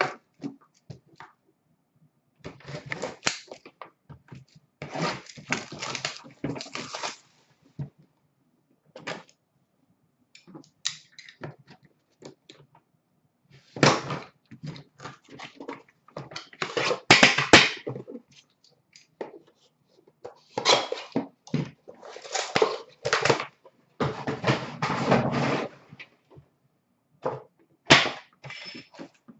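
A 2016-17 Upper Deck The Cup hockey card box being handled and opened by hand: irregular spells of rustling, scraping and knocking of cardboard and packaging, with short pauses between them.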